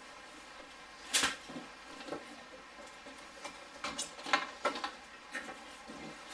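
A sharp knock about a second in, then a cluster of clicks and knocks in the second half: hands working the plastic front bumper cover of a Mk3 VW Golf free from the car.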